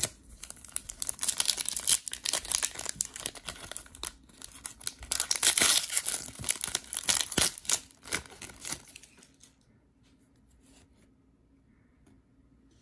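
Foil wrapper of a Leaf Draft football card pack being torn open and crinkled by hand. A dense crackle, loudest past the middle, stops about nine seconds in.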